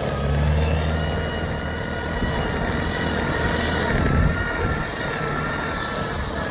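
Farm tractor engine running steadily as the tractor drives up a dirt road hauling a load of rice sacks. It is a low drone with a faint high whine above it, briefly louder about four seconds in.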